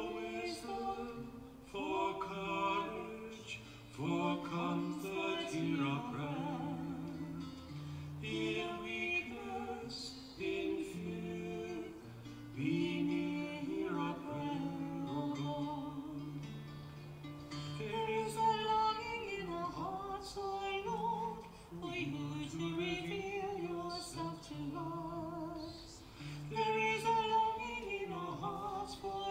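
A slow hymn: a woman's singing voice, with vibrato on held notes, over a plucked guitar accompaniment.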